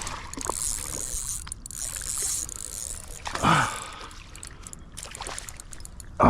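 Water splashing and churning as a hooked peacock bass thrashes at the surface, with a louder, sudden splash about halfway through.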